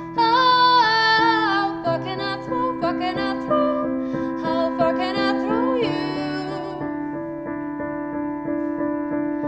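A woman singing a slow song over a Roland FP-80 digital piano. Her voice is loudest in the first two seconds, and the piano changes chord about two seconds in. The singing stops about six seconds in, leaving a held piano chord ringing on its own.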